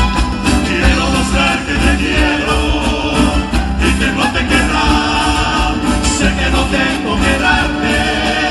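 Live Andean folk music: male voices singing over strummed acoustic guitars and a steady drum beat, amplified through a PA.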